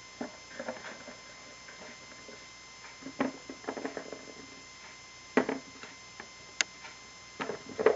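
Small plastic Shopkins figures being placed onto the shelves of a plastic toy fridge: light clicks and taps at irregular intervals, with one sharper click in the last part.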